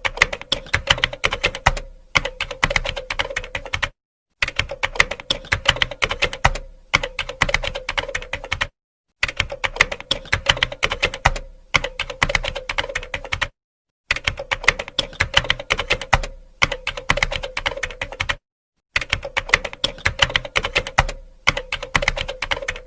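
Fast typing on a computer keyboard, a dense run of key clicks. The same stretch of typing repeats about every five seconds, each time broken by a short silent gap.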